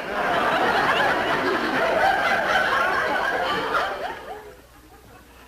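Audience laughter, many voices at once, loud for about four seconds and then dying away, with a single sharp bang at the very end.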